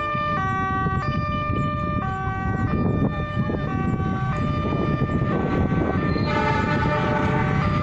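A melody of held, stepped tones changing pitch every half second to a second, over a low rumble of an approaching freight train that grows towards the end.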